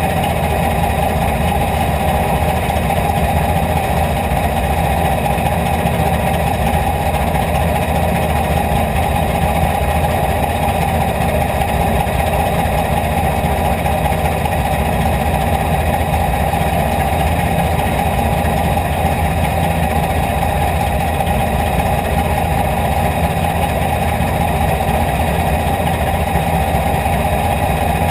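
IMCA Hobby Stock race car's V8 engine idling steadily, heard from inside the cockpit.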